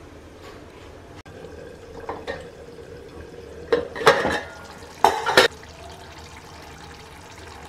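A steel plate used as a pot lid clattering as it is lifted off a cooking pot, followed by a spoon clanking against the metal pot while stirring the curry.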